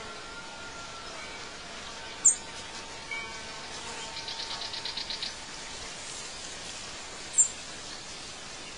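Birdsong over a steady background hiss: a few short, high chirps, and about four seconds in a fast trill of roughly eight notes a second.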